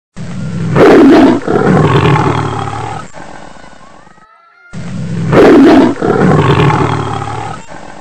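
A big cat's roar, loud at first and fading away over about three to four seconds. About four and a half seconds later the identical roar comes again: one recording played twice.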